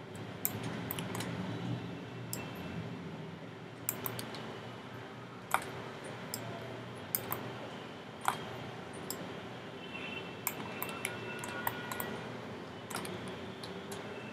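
Computer mouse and keyboard clicking: a dozen or so scattered, irregular single clicks, over a low steady background hum.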